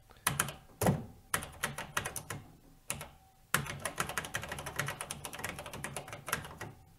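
Keystrokes on an ADDS Regent 200 data terminal keyboard as a test sentence is typed: scattered key presses at first, then after a pause about halfway through, a fast, steady run of typing.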